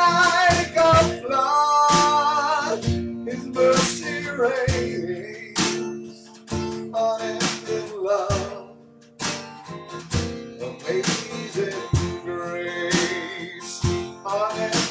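Instrumental passage of a duo: steel-string acoustic guitar played over a drum beat, the drum strikes coming at a steady rhythm.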